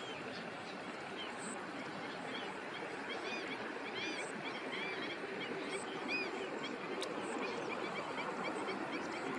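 Many birds calling with short, repeated chirps over the steady, noisy rumble of a tractor plowing the field.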